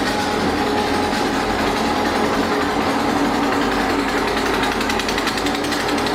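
Freight train cars rolling past close by: a steady rumble with a fast, rattling clatter of wheels and couplings, densest about four to six seconds in.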